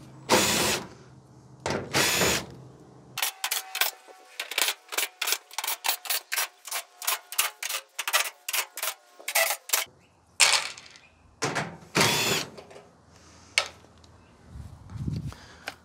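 A power drill with a quarter-inch hex bit running in short bursts, backing out small hex-head sheet-metal screws from a clothes dryer's steel back panel. Through the middle comes a fast run of sharp clicks and clinks, about four a second.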